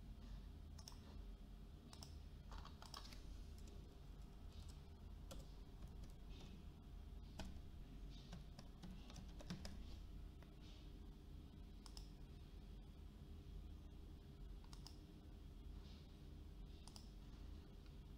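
Faint, scattered clicks of a computer keyboard and mouse, with a few quick runs of keystrokes, over a steady low hum.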